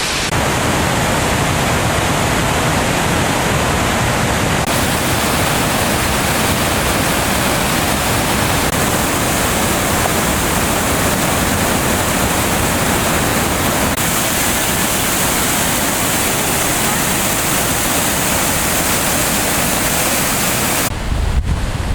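Loud, steady rushing of fast-flowing water, a mountain stream or waterfall in spring flow, changing in tone abruptly a few times. Near the end it gives way to a low rumble of wind on the microphone.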